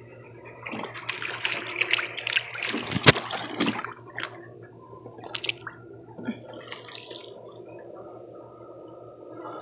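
Water splashing and sloshing in a plastic kiddie pool as a toy is swished through it, with one sharp knock about three seconds in; after about four seconds it settles to a few small splashes and drips.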